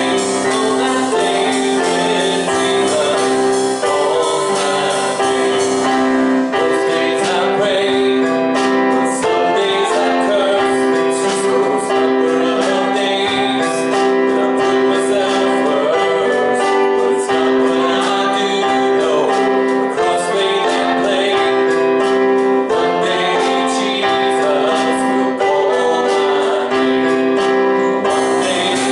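Gospel worship music: singers over piano or keyboard, with a steady rhythmic tapping, likely tambourine, joining about six seconds in.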